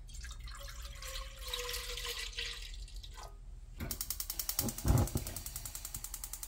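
Milk pouring from a plastic jug into an empty pot, a steady splashing stream. About four seconds in, a gas hob's spark igniter starts clicking rapidly and evenly as the burner knob is turned to light it, with one thump partway through.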